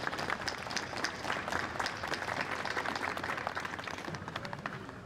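Crowd applauding, many hands clapping together, dying away near the end.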